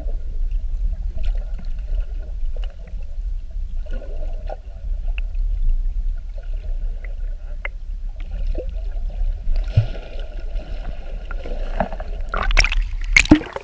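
Water heard through an underwater camera's housing just below the sea surface: a steady low rumble with faint sloshing and small clicks, then a few loud splashes near the end as the surface breaks over the camera.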